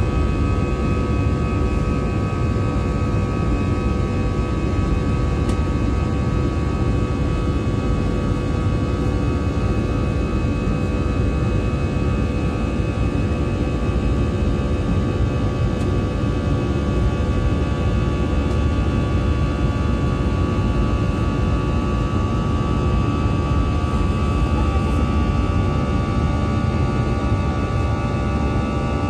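Airbus A320 jet engines and airflow running steadily, heard inside the cabin: a loud, even rumble with several steady whining tones above it.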